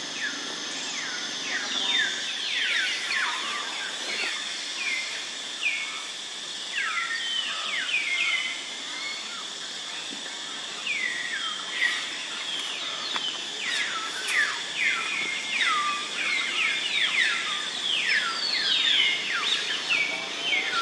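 Birds chirping, many short falling whistled calls repeating and overlapping, over a steady high insect drone.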